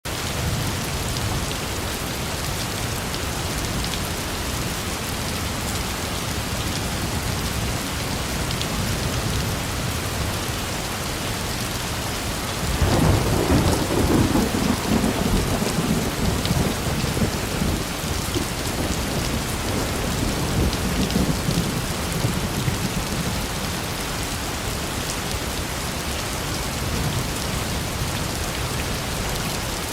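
Steady rain falling, with a roll of thunder that breaks in suddenly about halfway through, rumbles for several seconds and fades away.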